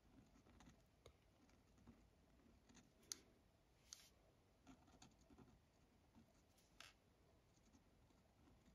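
Near silence, with faint scratching of a pen drawing on paper and a few light ticks.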